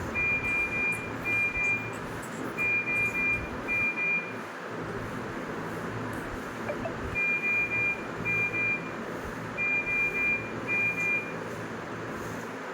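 Medical equipment alarm beeping: a high, steady electronic tone sounding in pairs of beeps, with a pause of a few seconds midway, over a steady hiss.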